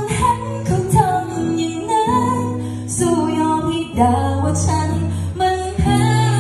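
A woman singing into a microphone over instrumental accompaniment. Her voice carries a wavering melody, and held bass notes change every second or two beneath it.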